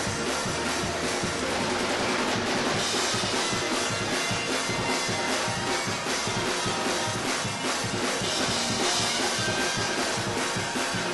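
Church praise-break music: live band with a driving drum kit, bass drum and snare, playing fast and steady.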